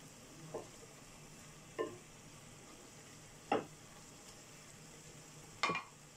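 Wooden spatula stirring vegetables in a metal pot: four short scrapes and knocks against the pot, the last the loudest with a brief ring, over a faint steady hiss.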